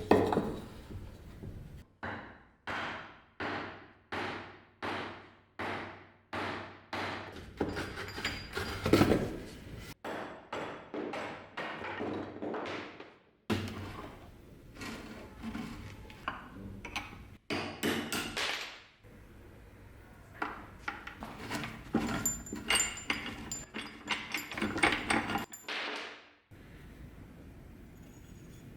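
Hammer blows landing in a steady run of about two a second, each with a short ring, then slower irregular knocking and clatter.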